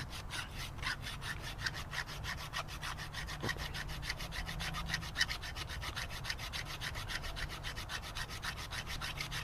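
Rapid, even scraping strokes, about seven a second, as a metal part is ground down so a coilover part will fit through.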